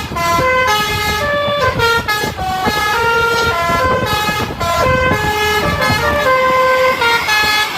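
Telolet-style multi-tone bus horn playing a stepped melody: a run of notes, each held about a third to half a second, jumping between pitches without a break.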